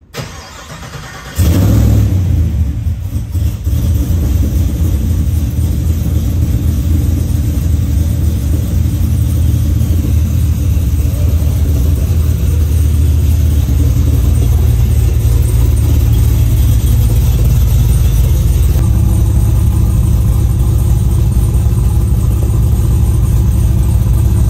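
Swapped supercharged GM LT V8 in an OBS Chevrolet pickup starting: a short, quieter start, then it catches about a second and a half in and settles into a steady, loud idle.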